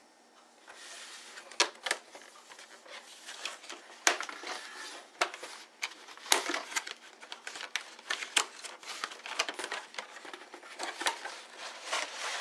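Hands unpacking a smartphone from its retail box: packaging crinkling, with irregular clicks and taps as the cardboard box, the phone and its accessories are handled.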